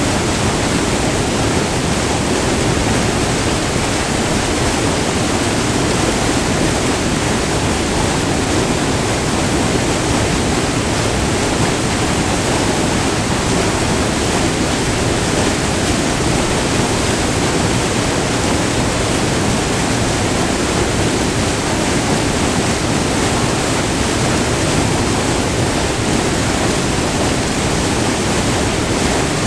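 Multi-tiered river waterfall rushing steadily, white water pouring over rock ledges close by.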